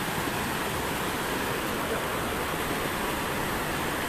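Steady rush of muddy floodwater flowing fast across a road.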